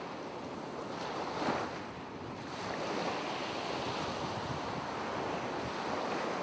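Ocean waves: a steady rushing wash of surf that swells and eases, with a small swell about a second and a half in.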